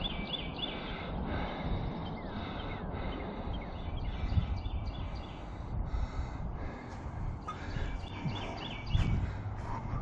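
A songbird singing a short phrase of quick repeated high notes, several times over, over a steady low rumbling background noise.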